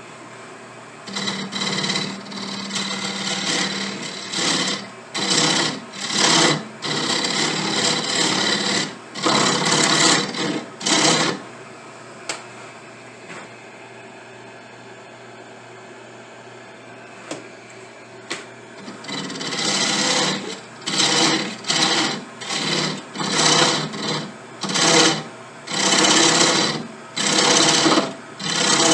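Lathe running steadily while a cutting tool shapes a spinning briar pipe block, in repeated rough scraping bursts each lasting about a second or less. For several seconds in the middle only the lathe's hum and a couple of clicks are heard, and then the cutting starts again.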